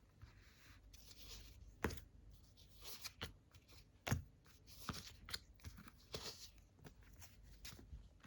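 Playing cards being handled on a table: irregular light taps and rustles, the two loudest taps about two and four seconds in.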